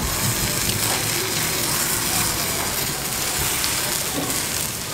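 Oil-basted chicken pieces on metal skewers sizzling over hot charcoal: a steady hiss.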